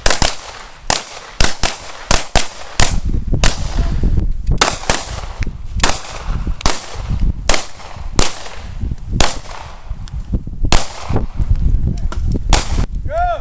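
Pistol shots fired one after another at an uneven pace, about two dozen in all, each a sharp crack. A low rumble runs beneath them.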